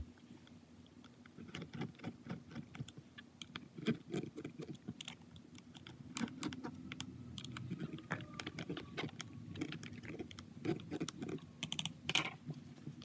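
Small screwdriver turning screws into the plastic frame of a BMW E46 center-console armrest: a run of light clicks and scrapes of metal on plastic as the screws are worked back and forth and snugged down.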